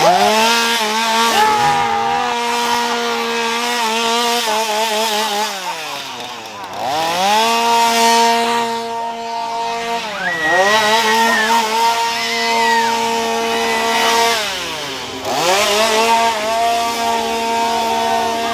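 Two-stroke chainsaw revved and held at high throttle. Its engine note drops and climbs back three times.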